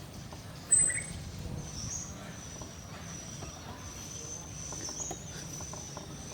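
Outdoor countryside ambience of insects trilling, a steady high-pitched trill repeating in long pulses. About a second in there is a brief sharp high note, the loudest moment.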